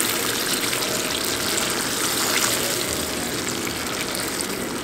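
Thin sauce simmering and sizzling in a nonstick frying pan on a gas burner, stirred with a silicone ladle: a steady bubbling hiss.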